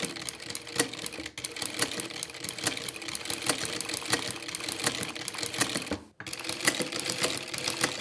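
Juki DDL-900B industrial single-needle lockstitch sewing machine running with a ruffler presser foot, pleating ribbon with a pleat every four stitches. It makes a fast, even run of clicks, with a short break about six seconds in.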